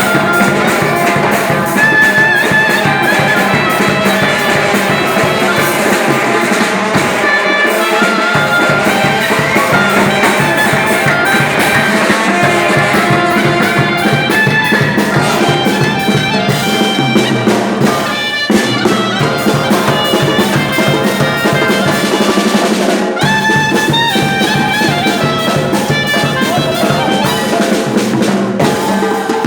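Loud instrumental band music: a brass-like melody line over a steady drum beat.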